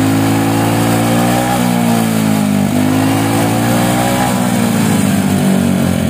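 Yamaha XMAX 250 scooter's single-cylinder engine revving up and down several times through its hollowed-out stock muffler, fitted with a stainless slip-on link pipe. The exhaust note stays smooth and mellow despite the drilled-out muffler.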